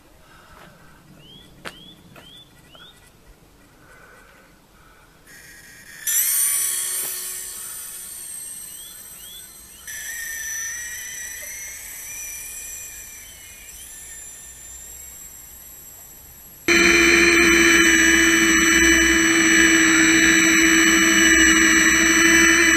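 Small electric motor of an RC zipwire camera buggy whining at a high pitch as it drives along the wire. About six seconds in it starts suddenly with a rising whine, then fades; for the last six seconds it runs loud and steady. A few faint short chirps come near the start.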